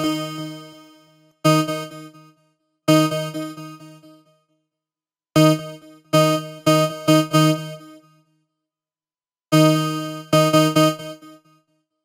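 Kilohearts kHs ONE software synthesizer playing a short, decaying patch: single notes and quick runs of repeated notes at much the same pitch, in short phrases with gaps between them. It stops shortly before the end.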